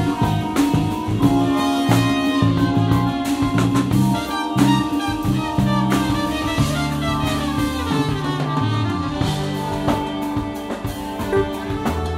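Live jazz-funk band playing: a drum kit keeping a busy beat under electric bass, with trumpets and tenor saxophone holding sustained horn lines. A descending run sweeps down about halfway through.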